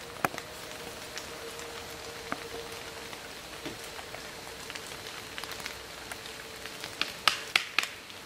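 Water dripping from wet trees onto leaves: scattered sharp ticks over a soft steady hiss, with three louder sharp cracks in quick succession near the end.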